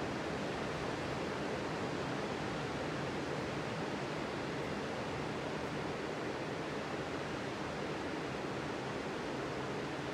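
Sea surf on a beach: a steady wash of breaking waves that blends into one even rush, with no separate crashes standing out.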